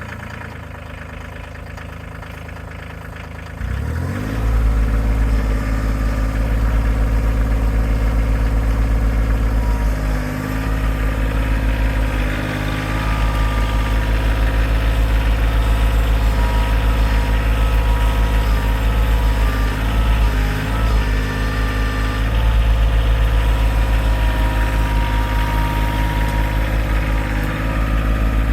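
Kioti tractor's diesel engine, just started, idling and then throttled up about four seconds in, running steadily with a deep low note.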